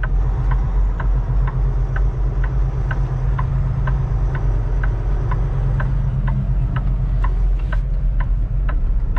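Kenworth T680's turn-indicator flasher ticking about twice a second over the steady low rumble of the truck's diesel engine in the cab.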